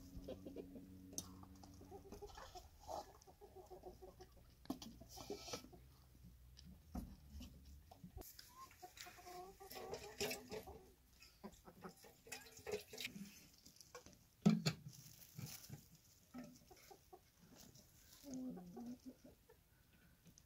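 Domestic chickens clucking quietly while feeding, with many short sharp taps scattered throughout and one louder knock about two-thirds of the way through.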